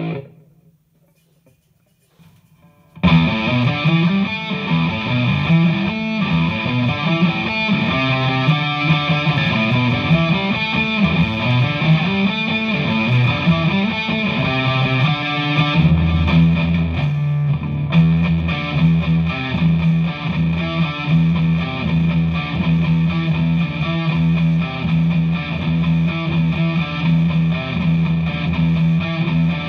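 Electric guitar (a Vintage V100 Les Paul copy) played through a DigiTech GNX3 multi-effects distortion patch into a Hughes & Kettner Attax amp. The first three seconds are near silence; the playing then starts loud and busy, and about halfway through it shifts to steady, repeated low notes.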